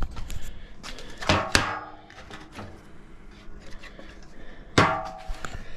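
Sharp metallic clanks on a steel welding table, each followed by a brief ringing: two close together about a second in, and another near the end.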